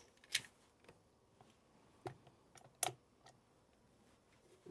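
A few light clicks and knocks from handling a stand mixer that has just been switched off, with its head tilted up and the flat beater lifted out of the cookie dough; the louder ones come about a third of a second in, around two seconds and near three seconds.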